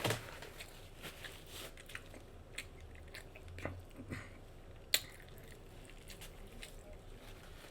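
Close-miked mouth sounds of someone eating a bacon cheeseburger: soft chewing with scattered wet lip smacks and clicks, one sharper smack about five seconds in.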